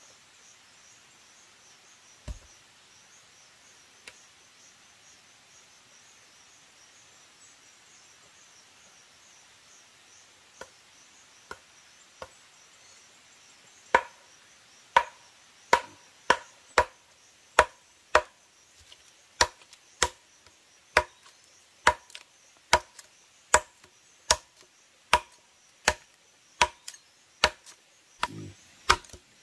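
Wood being chopped by hand with a bladed tool: a few scattered knocks, then from about halfway steady blows roughly one a second, each with a short ringing note. A faint chorus of insects pulses throughout.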